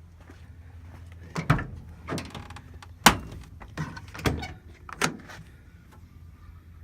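Van door being worked: a series of clunks and knocks from the latch and panel, the sharpest and loudest about three seconds in.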